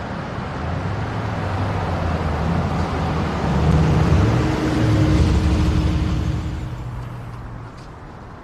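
A car driving past, its engine rumble and tyre noise swelling about halfway through and fading away near the end.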